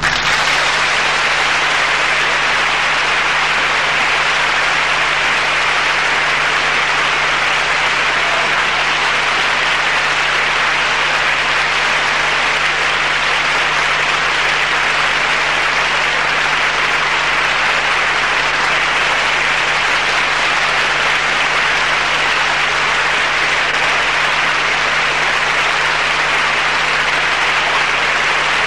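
Audience applauding steadily, with a faint low hum underneath.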